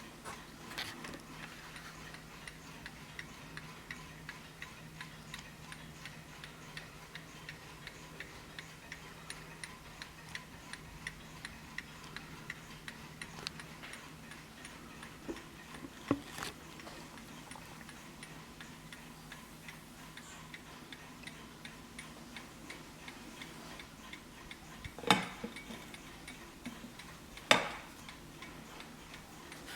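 Vintage Hermle skeleton mantel clock's 8-day mechanical movement ticking steadily, with two louder knocks near the end.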